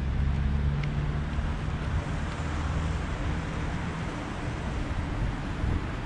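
Street traffic: a motor vehicle's engine hums low and steady for the first couple of seconds, then fades under even road noise.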